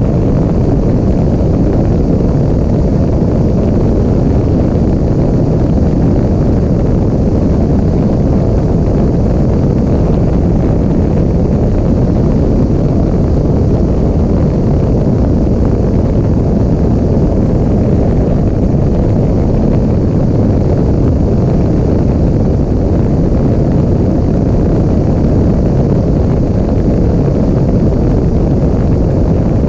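Steady, loud engine and slipstream noise of a Pitts aerobatic biplane in flight, picked up by a camera mounted on the airframe with wind buffeting the microphone.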